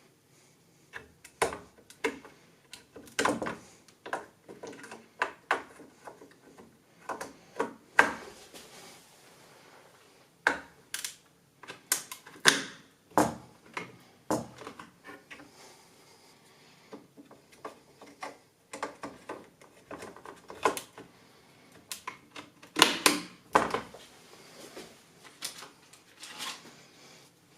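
Irregular clicks, taps and light knocks of computer parts and their packaging being handled and fitted during a PC build, coming in clusters with short pauses.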